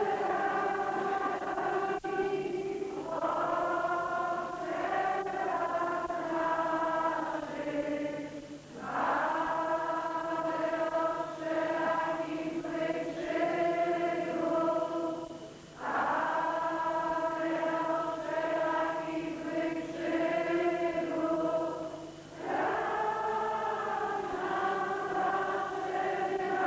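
A hymn sung by a group of voices in long held phrases, with a short breath between phrases about every six to seven seconds.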